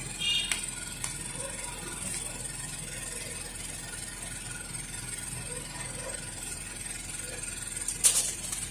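Hands pressing a chrome trim strip onto a car's plastic front grille: light clicks near the start and one sharp click about eight seconds in, over a steady low hum and hiss.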